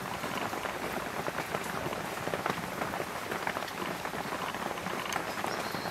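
Steady rain falling, an even hiss dotted with the patter of many drops.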